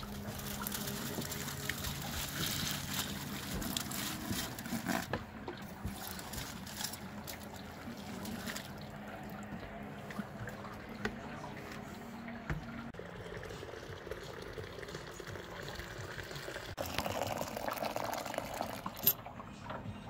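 Wort poured from a plastic jug onto aluminium foil laid over the mash in a stainless brewing kettle, splashing and trickling: the first runnings being recirculated over the grain bed to clear them.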